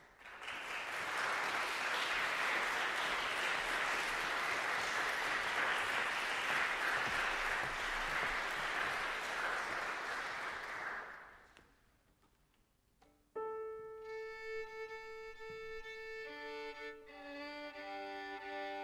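Audience applauding for about eleven seconds, then dying away. After a short quiet, violin and piano begin playing, with long held notes.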